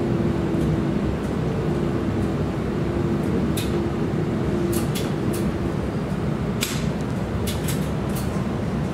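Steady rumble inside a TriMet MAX light rail car rolling at low speed, with a steady hum that fades out about six seconds in. About eight sharp clicks come in the second half.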